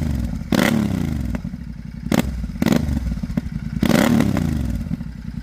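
Royal Enfield Shotgun 650's 648 cc parallel-twin engine running through a Torbal aftermarket sport exhaust, revved in several quick throttle blips, the revs falling back toward idle after each.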